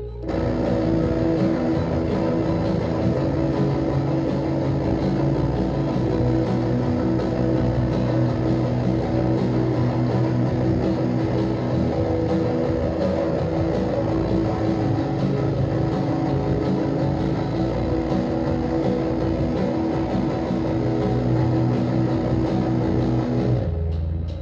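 Live shoegaze band playing a loud, dense wall of electric guitar with held notes over a thick noisy wash, with bass and drums. It comes in suddenly at full volume and drops away sharply near the end.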